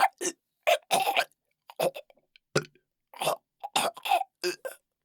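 A man choking, with rough coughs and gasps for air in short, broken bursts and brief silences between them.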